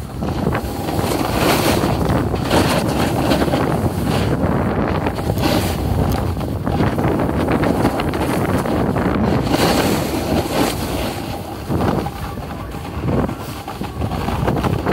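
Wind buffeting the microphone of a camera carried by a skier going downhill, over the hiss and scrape of skis sliding on packed snow; the rush eases a little about twelve seconds in.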